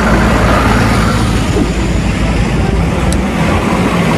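JCB backhoe loader's diesel engine running as the machine drives along, a steady low engine note under constant rushing noise.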